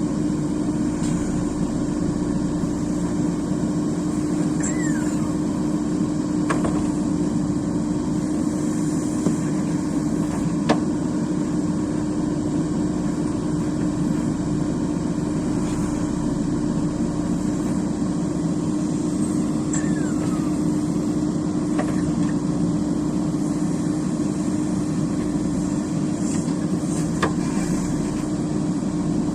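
Excavator's diesel engine running steadily, with a few sharp knocks along the way.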